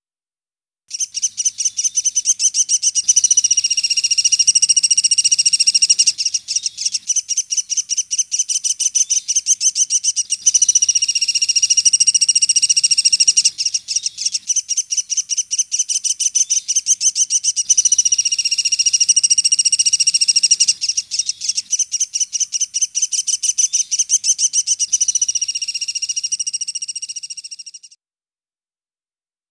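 Sunda pygmy woodpecker calling a rapid, high, chattering trill of many fast notes. It comes in long runs with brief breaks every few seconds and cuts off abruptly near the end.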